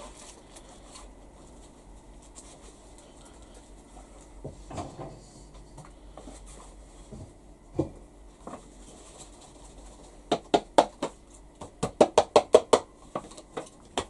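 Hands cleaning fluff out of a Hoover vented tumble dryer's lint filter: faint rustling and a few soft knocks, then, about ten seconds in, a quick run of sharp clicks and taps, several a second, lasting a few seconds.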